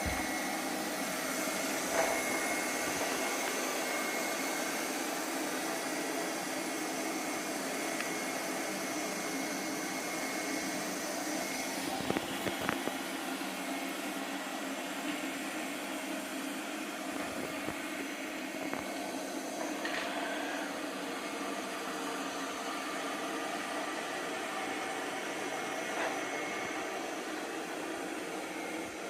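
Light 'N' Easy robot vacuum running steadily, a level motor and suction hum with a faint high whine, broken by a few light knocks.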